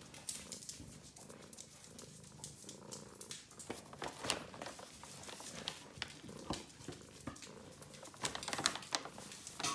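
A domestic cat purring steadily while it paws at a paper bag, with scattered crinkles and scratches of its claws on the paper, more of them near the end.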